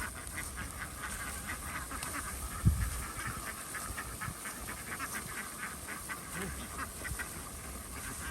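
A flock of ducks quacking continuously in a dense chatter of short calls, with one low thump about two and a half seconds in.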